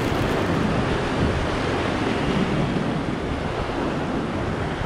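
Sea surf surging and washing against a rocky shoreline, a steady rushing noise, with wind buffeting the microphone.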